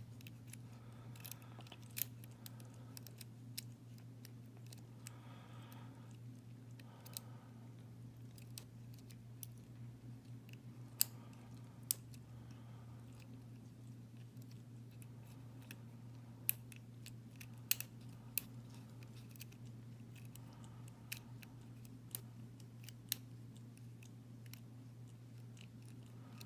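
Small, scattered metallic clicks and faint scraping as a lock pick works the pins inside a Winkhaus half euro cylinder lock, over a steady low hum.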